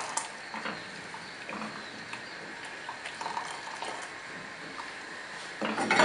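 Hot water poured in a steady stream from an enamel pot into a saucepan of thick maize-meal paste while a wooden spoon stirs it. Near the end there is a louder clatter of pot and spoon against the pan.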